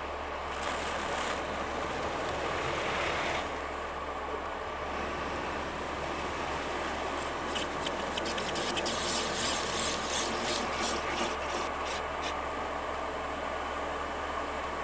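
Automatic car wash heard from inside the car: a hiss of spray on the glass, then the wash's rotating brushes slapping and rubbing over the car in quick strokes, about three or four a second, for several seconds, over a steady hum of the machinery.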